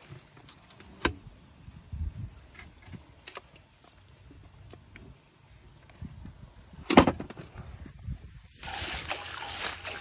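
Live snakehead fish shifting and slapping in a container, giving scattered knocks and thuds, the loudest about seven seconds in. Near the end it gives way to steady splashing of muddy water.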